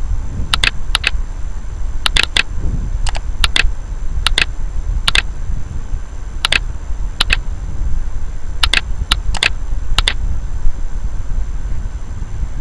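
About fourteen sharp clicks of a computer's mouse and keys, irregularly spaced and some in quick pairs, over a steady low hum.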